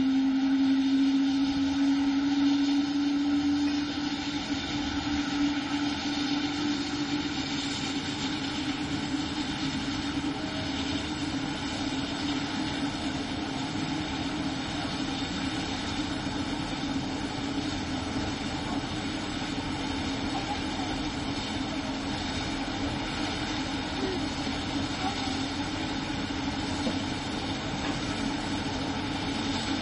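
Rescue helicopter running on the ground with its rotor turning: a steady turbine and rotor sound with a whine that rises slightly in pitch over the first few seconds, then holds steady.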